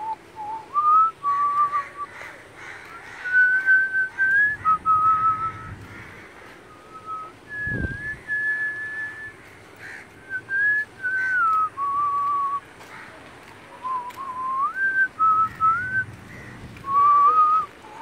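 A person whistling a slow tune, one clear note at a time, holding notes and sliding or stepping between them in short phrases. A dull low thump about eight seconds in.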